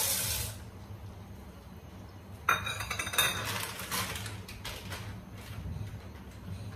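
Steel cooking pot and metal spoon clinking and scraping as dry macaroni goes in and is stirred: a sharp clink about two and a half seconds in, a quick run of clinks for about a second, then scattered clinks.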